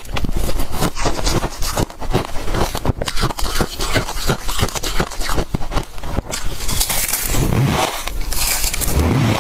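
Freezer frost crunching close to the microphone in a rapid, crackly run, with two louder, fuller crunches near the end.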